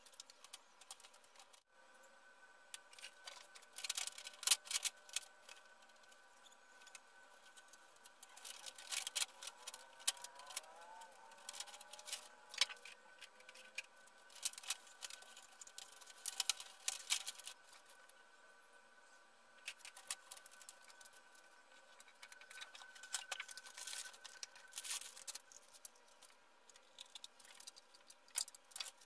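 Thin plastic reflector sheet of an LED TV backlight crackling and rustling as it is handled and lifted, with scattered clicks in clusters. A faint steady hum of several tones sits underneath.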